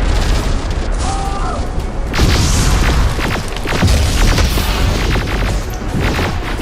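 Layered battle sound effects: repeated booms and impacts over a constant deep rumble.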